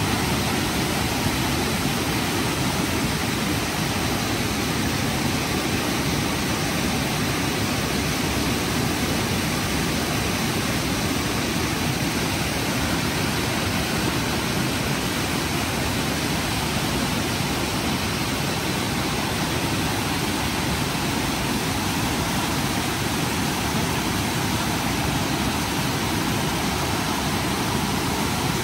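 Steady, loud rushing noise, unchanging throughout.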